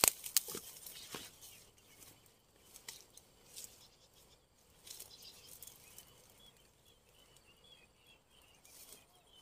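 Faint rustling of grass and a few light taps as a person moves and crouches in waterside vegetation, with a few faint high chirps about four seconds in.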